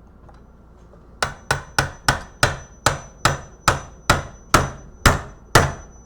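Hammer blows on the plastic case of a blood pressure monitor, struck to break it open. About a dozen sharp knocks start about a second in, the first few quick and the rest a little slower.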